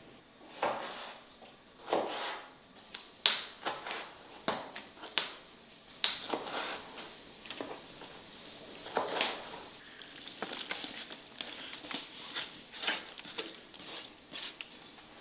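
Irregular clicks and knocks, some with a short wet squish: a knife cutting raw liver into cubes on a wooden cutting board.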